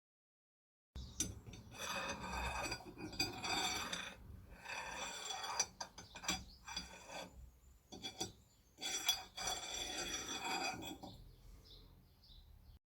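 Irregular rasping strokes of a hand tool working a metal part, with a faint metallic ringing and a few clicks between strokes.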